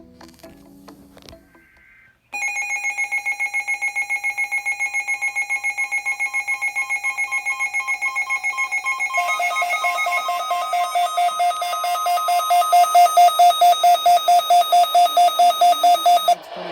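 Emergency alert attention tone: a loud electronic beep pulsing rapidly and evenly, starting about two seconds in, changing pitch about halfway through and cutting off suddenly near the end, ahead of a flood warning message.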